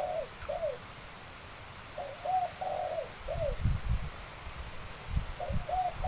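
A dove cooing a short phrase of several soft notes, twice, with a third phrase starting near the end, over gusts of wind buffeting the microphone.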